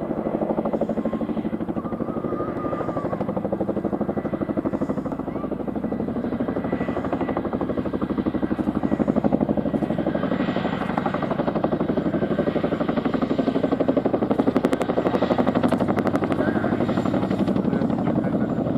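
Boeing CH-47F Chinook tandem-rotor helicopter in low, slow flight: its twin rotors beat in a fast, even pulse over the steady running of its turbines, swelling a little about halfway through and again near the end.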